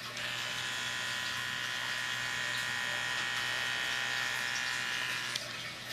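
Elebebe baby hair trimmer with one of its interchangeable heads fitted, running with a steady high electric whine. It starts just after the beginning and stops near the end.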